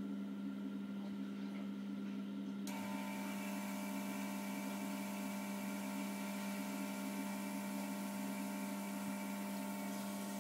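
Steady low electrical hum of running pond equipment. About three seconds in, a hiss and a set of higher steady whines come in suddenly and carry on over the hum.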